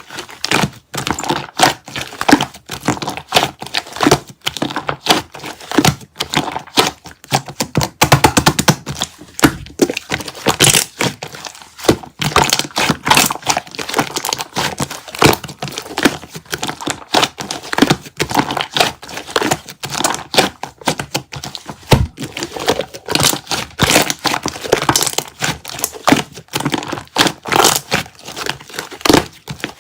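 Slime being pressed, poked and stretched by hand, giving a dense, irregular run of crackling clicks and pops.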